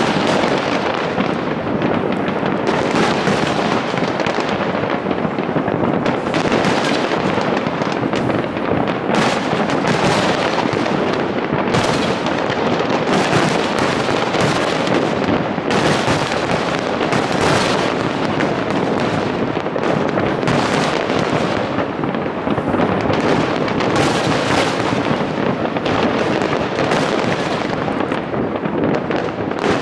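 A large fireworks display going off as a continuous barrage: many shells bursting in quick, overlapping succession, with no let-up.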